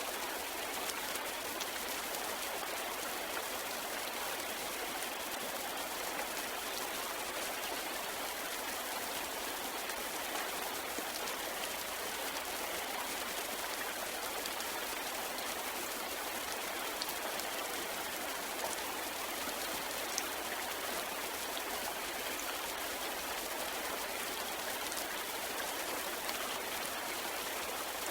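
Steady rain falling, an even hiss with a few separate drops ticking now and then.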